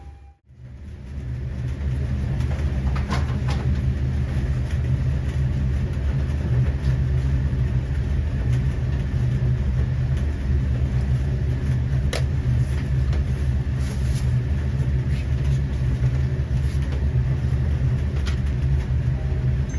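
A steady low rumble of kitchen equipment running, with a few light clicks and taps. The sound drops out briefly right at the start.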